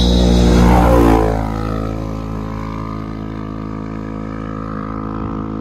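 Vehicle engines: one passes close and loud in the first second or so, its pitch falling as it goes by, over a steady engine drone that carries on through the rest.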